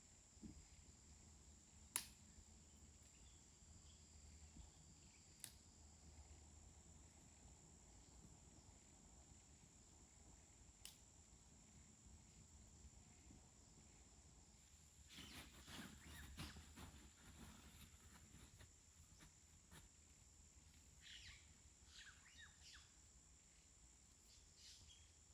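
Near silence: faint outdoor ambience with a steady high-pitched hum, a few isolated sharp clicks, and a stretch of light rustling and crackling about fifteen seconds in.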